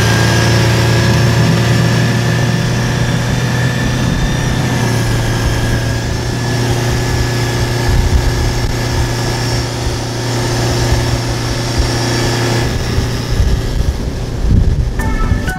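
OXE Diesel K 150 hp diesel outboard running at high throttle, its tone holding steady, with wind and water-spray noise over it. The engine tone thins out about 13 seconds in.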